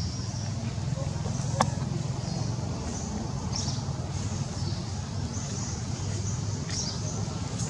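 Outdoor ambience: a steady low rumble with short, high chirps now and then, and one sharp click about a second and a half in.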